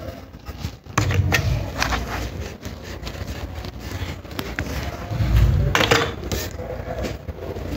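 Handling noise of a hand rubbing and bumping on a paper notebook: rustling with a few sharp knocks about a second in and a louder cluster of bumps and knocks near six seconds in.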